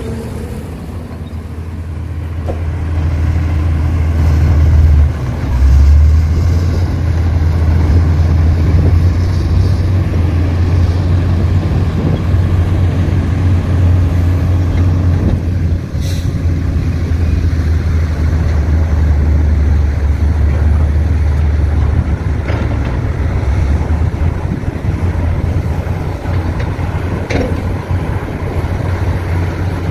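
Heavy diesel engine running, a deep steady drone that builds up over the first few seconds and then holds loud. Two short sharp knocks are heard, one around the middle and one near the end.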